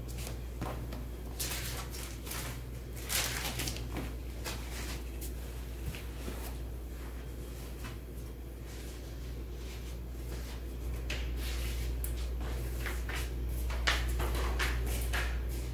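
Indoor shop ambience: a steady low hum under scattered rustling and a few light knocks, the sharpest about three seconds in and again near the end.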